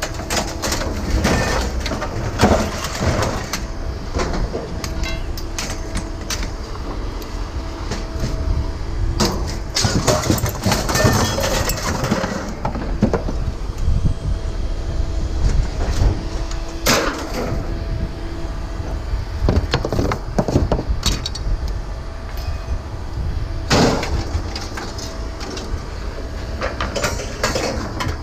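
Scrap metal being handled and loaded onto a trailer: repeated clanks and knocks over a steady low rumble of running machinery with a faint hum.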